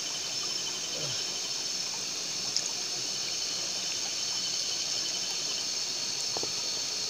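Shallow stream water trickling and gurgling over rocks, under a steady high-pitched insect chorus.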